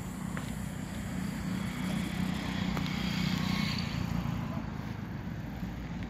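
A motor vehicle's engine rumble swells over about three seconds and then fades as it passes.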